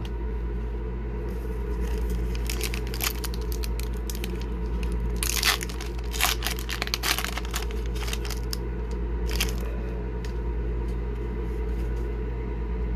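Foil wrapper of an Upper Deck hockey card pack being crinkled and torn open: a run of sharp crackles and rips from about two and a half to nine and a half seconds in, densest in the middle. A steady low hum runs underneath.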